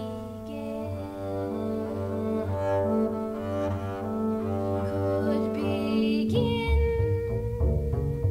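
Solo double bass played with the bow, holding long sustained notes that overlap. About six seconds in it changes to shorter, separate notes lower in the bass.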